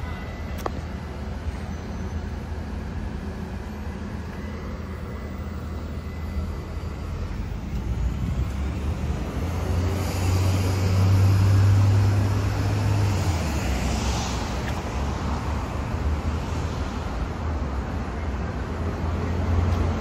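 Street traffic: a steady rumble of passing cars, with one vehicle passing close and loudest about twelve seconds in.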